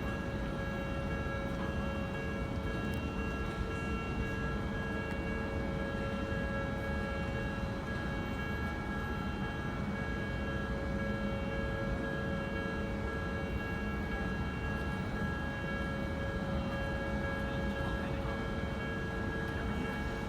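Railway noise at a level crossing: a train's steady low rumble with several steady high tones held above it throughout.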